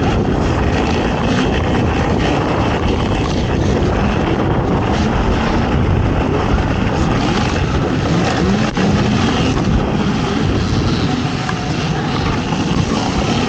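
Racing ATV engine running under throttle, its pitch rising and falling as the rider works it, over a steady rough rumble.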